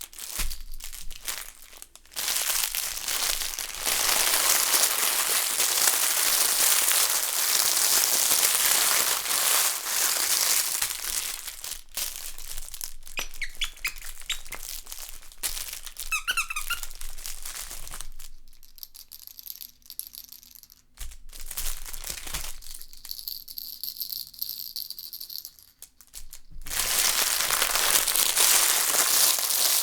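Crinkle baby toy scrunched in the hands, crinkling loudly in long stretches. Brief squeaks come in the middle, then a quieter stretch with faint high ringing tones before the crinkling starts again near the end.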